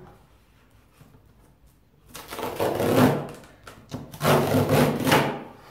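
Large knife slicing through the packing tape and cardboard along the top seam of a box: two long cuts, each lasting about a second, the second starting about two seconds after the first.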